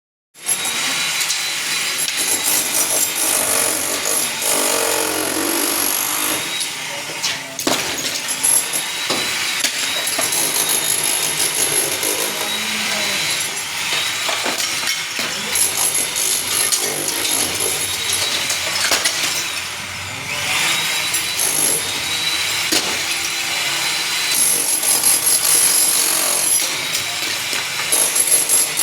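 Electric drill boring into broken ceramic tile to loosen it for removal: a steady grinding with a high motor whine that dips and recovers several times as the bit bites, and a few sharp cracks.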